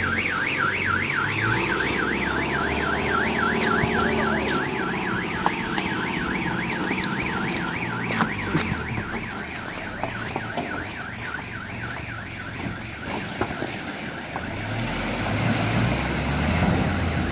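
A fast warbling, siren-like tone wavers up and down about four times a second and fades out about halfway through. Under it a pickup's engine runs, growing louder near the end with rushing, splashing water as the truck drives into the river.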